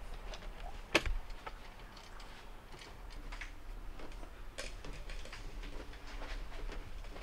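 Scattered light clicks and knocks of hands handling parts and fitting panels, with one sharper click about a second in, over a low steady hum.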